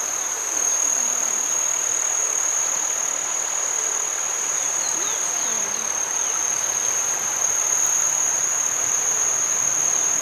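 Insects calling: an unbroken high-pitched drone, steady in pitch and level, over a soft even hiss.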